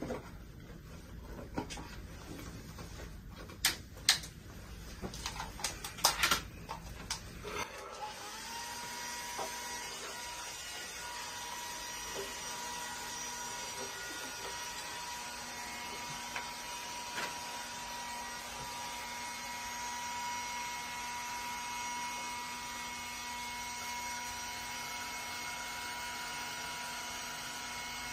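A few sharp clicks and knocks from handling the model over the first several seconds, then a handheld hair dryer switched on about eight seconds in and running steadily, blowing onto a small model wind-turbine propeller. Its airflow noise carries a steady tone.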